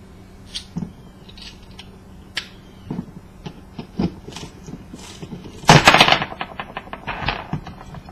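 A screwdriver prying and scraping at the plastic bobbin of a copper-wound coil: scattered sharp clicks and knocks, then a loud burst of rapid scraping clicks about six seconds in, followed by a run of quicker ticks.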